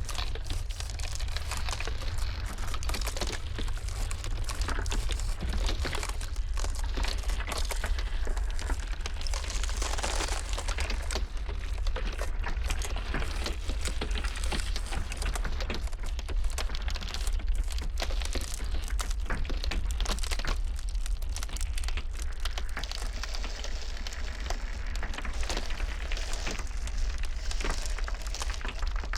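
Iceberg ice cracking and crackling in dense, irregular snaps over a steady low rumble of blizzard wind.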